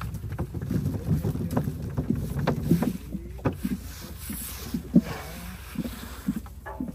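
Irregular soft knocks of peaches rolling across a sorting board and dropping into a plastic fruit bin, over a low rumble of wind on the microphone.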